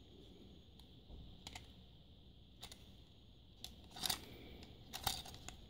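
Faint, scattered small plastic clicks and taps from fingers turning over and pressing on a MiniDisc cartridge, feeling for the catch that opens it. A few louder clicks come about four and five seconds in.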